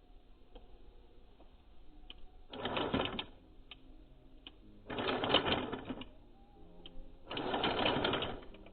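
Toy RC rock crawler's electric motor and gearbox whirring in three bursts of about a second each as it is driven, with a few light clicks between the bursts.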